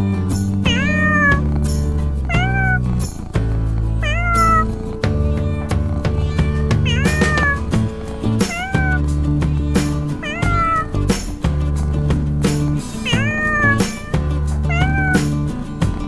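Domestic cat meowing over and over, about ten meows each a second or two apart, each rising then falling in pitch, over background music.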